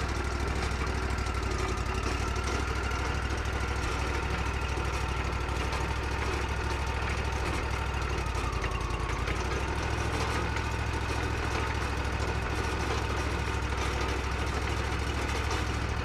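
Wood-Mizer LT40 sawmill's engine running steadily, its low note shifting slightly about halfway through.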